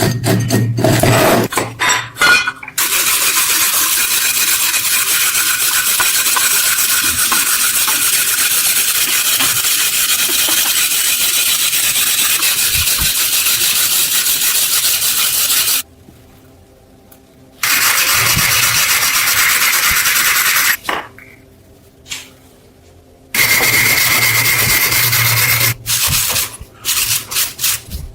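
Abrasive scrubbing on rusty metal in long, steady stretches, stopping twice for a second or two and ending in short choppy strokes: rust being cleaned off.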